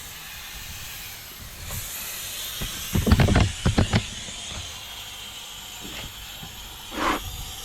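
Steady hiss of air escaping from a car tyre through its valve stem with the core removed, as the tyre deflates. A quick cluster of loud knocks and clanks comes about three seconds in.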